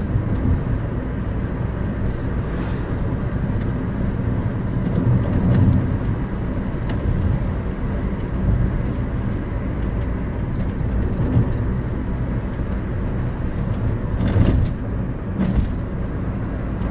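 Steady road noise inside a car travelling at highway speed: a continuous low rumble of tyres and engine. Near the end there are two brief knocks.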